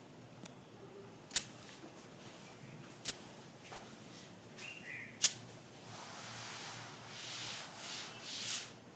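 A few faint clicks, then a cloth duster rubbing across a chalkboard in several back-and-forth strokes, a soft swelling and fading scrub over the last few seconds.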